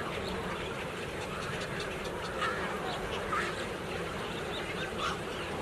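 A large colony of waterbirds calling all at once, a dense chorus of many overlapping short calls, with a few louder calls standing out about two and a half, three and a half and five seconds in.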